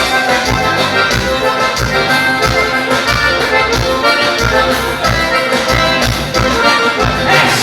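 Instrumental dance music with no singing, over a steady low bass beat.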